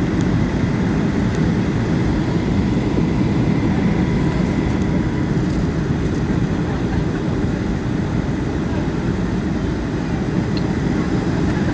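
Steady roar of a jet airliner's cabin on approach, engine and airflow noise, with a faint steady whine above it.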